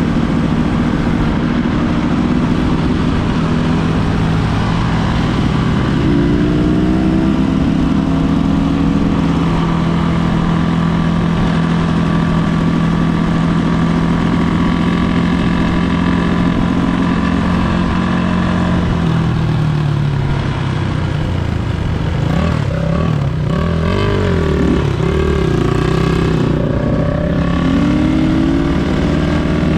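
Enduro dirt bike engine running under way, holding a steady pitch for much of the time, then revving up and down repeatedly in the last third.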